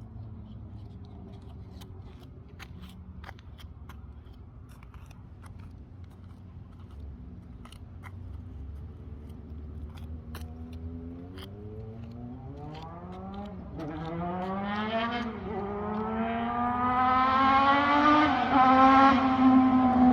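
A vehicle engine running low and steady, then revving up and accelerating from about two-thirds in. Its pitch climbs, drops briefly once, then climbs again, as at a gear change, and it grows much louder toward the end.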